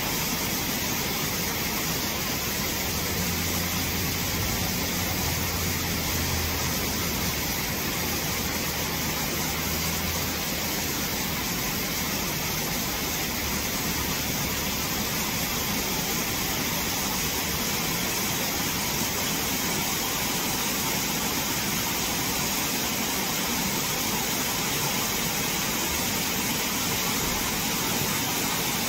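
Shallow rocky stream running over stones in small cascades, a steady, unbroken sound of flowing water.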